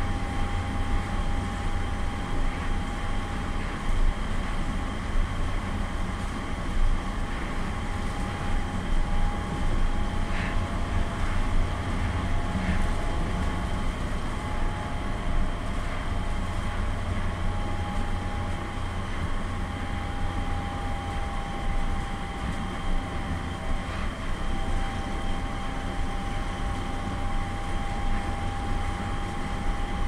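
Cabin running noise of a Nippori-Toneri Liner rubber-tyred guideway train moving slowly under a strong-wind speed restriction. A steady low rumble is joined by a constant mid-pitched whine, with a couple of light knocks around the middle.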